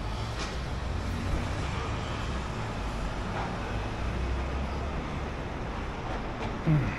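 Urban road traffic: a steady low rumble. Near the end there is a short downward-sliding tone, the loudest moment.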